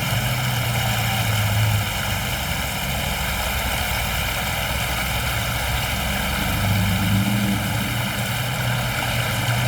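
Rain-swollen river rushing steadily and loudly, with a low drone underneath that swells and fades.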